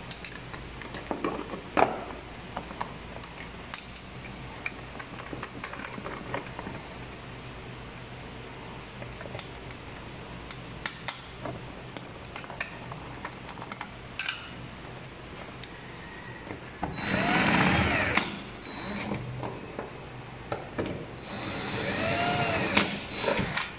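Cordless drill-driver driving screws to fasten a plastic lamp holder to an octagonal junction box, running twice briefly, its motor rising and falling in pitch with each run. Before that, light clicks and handling of wires and plastic parts.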